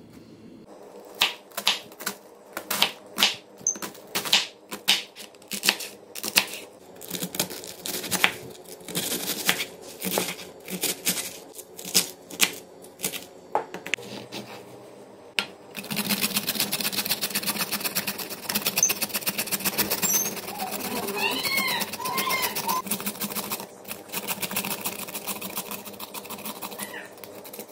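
Kitchen knife chopping cabbage on a wooden cutting board, in separate sharp chops about one or two a second. About halfway through it changes to the rapid, even rasping of carrot being grated on a metal grater.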